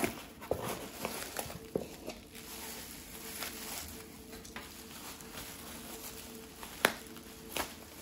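Bubble wrap and a cardboard box being handled: crinkling plastic and light rustling, with a burst of small crackles at the start and two sharp clicks near the end. A faint steady hum sits underneath.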